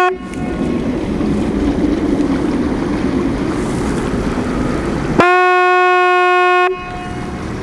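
Hound-tracking radio receiver hissing with static, then a steady electronic beep about five seconds in that cuts off after about a second and a half: the signal from a hound's tracking collar being picked up.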